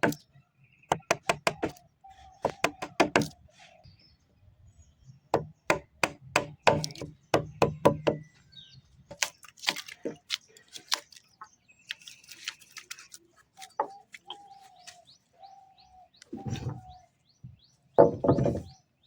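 Wood chisel being struck to cut into timber: quick runs of sharp knocks, about four or five a second, separated by pauses, with a couple of heavier, duller blows near the end.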